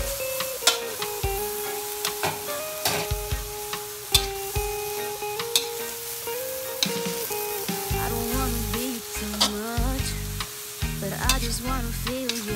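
Water spinach and beef sizzling in a wok while a metal spatula stirs and tosses them, with frequent sharp clicks and scrapes of the spatula against the pan. Background music plays underneath.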